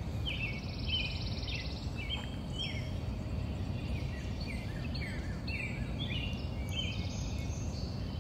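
Small birds chirping repeatedly in short, quick notes over a steady low background rumble.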